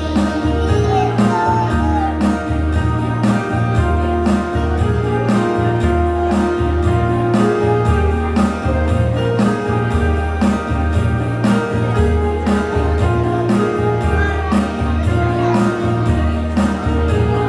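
Instrumental break of a hymn accompaniment between sung verses: music with a steady beat, a low pulse about twice a second under held notes.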